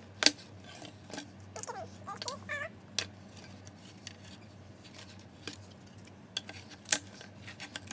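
Model-kit pieces being pressed out of their cut sheet: scattered sharp clicks and snaps with handling noise between them. The loudest snaps come about a quarter second in and near seven seconds.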